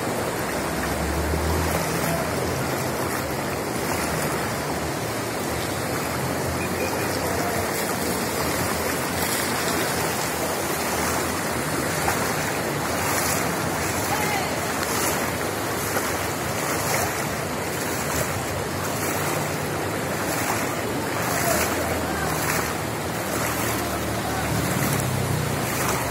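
Steady rushing wash of floodwater running down a flooded street, with faint voices in the background.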